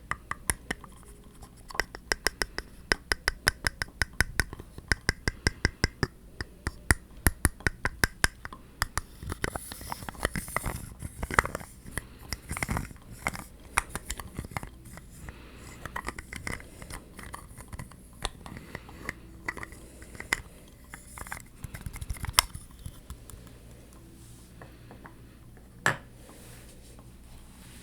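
Close-up ASMR tapping and scratching on objects. Quick runs of sharp taps fill the first nine seconds or so, followed by slower, scattered taps and scratching, with one louder tap near the end.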